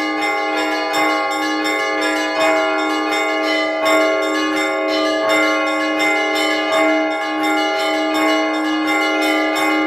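Russian Orthodox church bells rung by hand (zvon): several bells of different pitches struck in a quick, repeating rhythm, their tones overlapping and ringing on. It is a call to prayer summoning the faithful to church.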